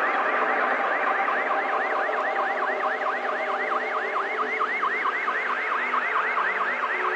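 An electronic siren or alarm warbling fast, its pitch dipping and rising about five times a second, over a steady rushing noise.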